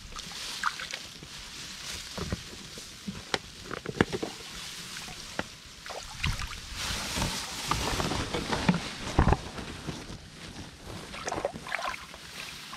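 Shallow water splashing and sloshing in a woven bamboo basket as a koi flops about in it, with scattered light clicks and knocks throughout.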